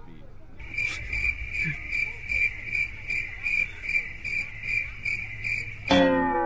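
Cricket-chirp sound effect: a high chirp repeating steadily about twice a second, starting and stopping abruptly. About six seconds in it gives way to a loud sound that falls in pitch and fades.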